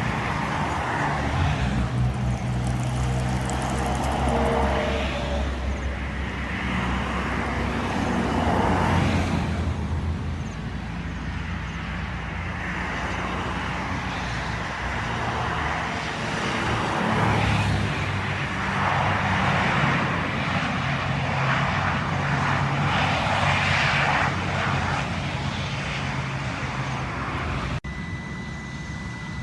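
Aircraft engines running, a continuous rushing noise that swells and fades every few seconds over a low, steady engine hum. The sound cuts off abruptly near the end, leaving a quieter background with a thin high tone.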